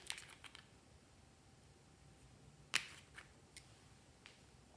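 Small plastic clicks and taps of a cosmetic bottle and its gold cap being handled: a sharp click at the start with a few light ones after it, a louder tap nearly three seconds in, and a couple of faint ticks near the end.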